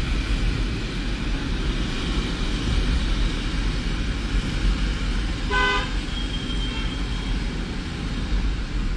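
Steady low road and engine rumble inside a moving car, with one short vehicle horn toot a little past halfway.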